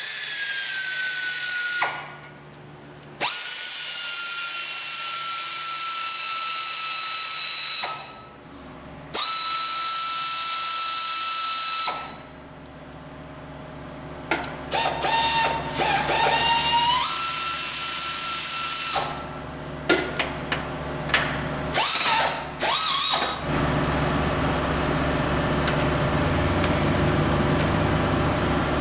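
Cordless electric ratchet whining in about five runs of a few seconds each as it spins out valve cover bolts, its pitch sagging slightly during each run; the later runs are short and stuttering. In the last few seconds a steady low hum takes over.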